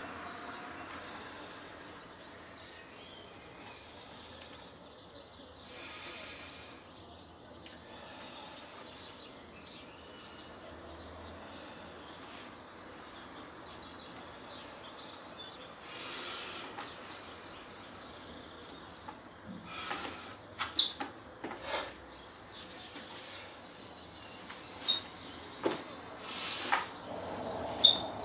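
Outdoor ambience with faint bird chirps, broken by several short sharp sounds from about two-thirds of the way in, the loudest near the end.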